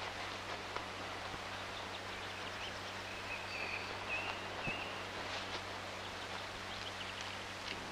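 Steady hiss and low hum of an old film soundtrack, with faint scattered clicks and rustling. A brief high, wavering chirp comes about three and a half seconds in.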